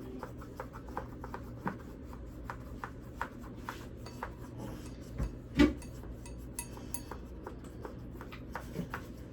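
Light clicks and taps of paintbrushes against paint pots and cups on a table, with one louder knock about five and a half seconds in.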